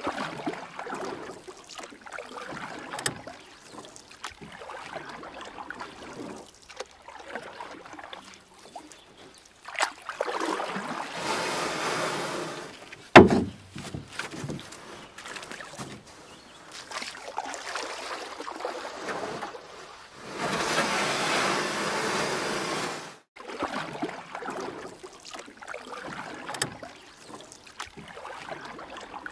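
Kayak paddle dipping into calm water stroke after stroke, with splashing and dripping. Two louder stretches of splashing lasting a few seconds each, and one sharp knock a little past thirteen seconds in.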